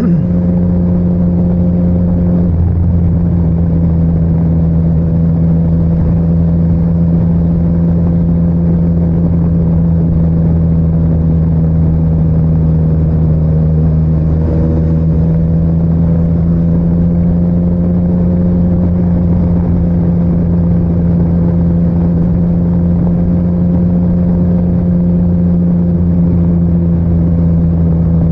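Motorcycle engine running at a steady cruising speed, its note holding nearly level with only slight shifts, under a constant rush of wind noise.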